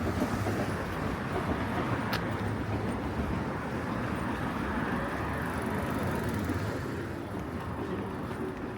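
Street ambience with a steady rumble of road traffic and a single sharp click about two seconds in.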